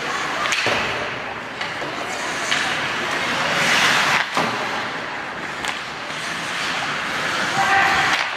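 Ice hockey play: skate blades scraping and hissing on the ice, broken every second or two by sharp knocks of sticks and puck.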